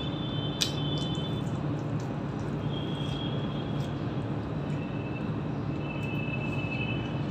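Someone eating by hand: chewing a fried cauliflower pakoda, then fingers mixing rice, over a steady low background hum. A sharp click comes about half a second in, with a few faint short high chirps.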